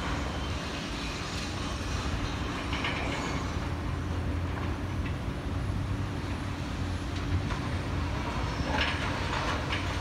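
Heavy diesel engine of the crane working a wrecking ball, running steadily with a low drone, with a few short clatters.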